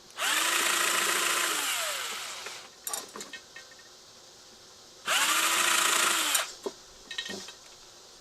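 Cordless screw gun running twice, about two seconds and then a second and a half, each time spinning up quickly, holding speed and winding down, as it works screws on a ceiling fan motor. A few light clicks and taps follow each run.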